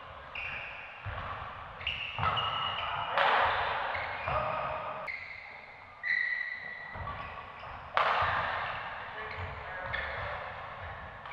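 Badminton doubles rally on an indoor court: sneaker squeaks on the floor and racket strikes on the shuttlecock. Two louder hits, about three seconds in and again about eight seconds in, each trailing off in a second-long rush of noise.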